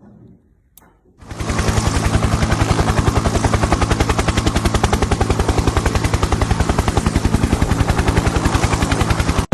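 Helicopter rotor blades chopping in a fast, even beat. It starts about a second in and cuts off abruptly.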